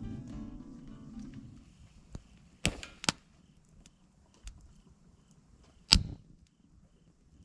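Background music fades out, then a few sharp woody knocks and cracks: firewood being broken up for a campfire. There is a close pair about three seconds in, and the loudest single crack comes near the end.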